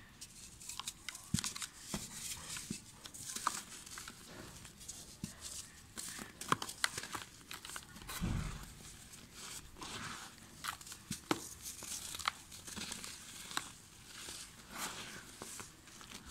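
Dry red dirt blocks being crushed and crumbled by hand: a close-up run of gritty crunching and crackling with a fine hiss of powder falling back into loose dirt. A dull thump comes about halfway through.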